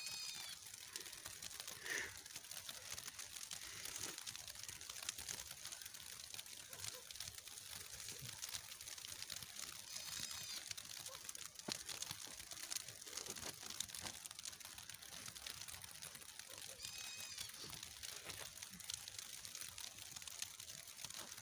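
Faint, even crackling patter of heavy snow falling on snow-laden trees and bushes. A bird gives a short, high call three times, about seven seconds apart.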